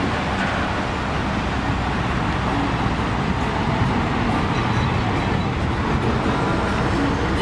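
Steady rumbling traffic noise with no distinct events.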